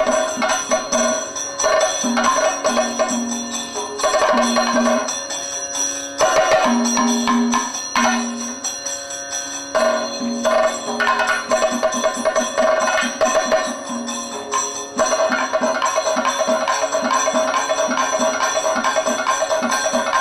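Kathakali percussion accompaniment playing continuously: drums with ringing, bell-like metal strokes, in a dense rhythm whose pattern shifts every few seconds.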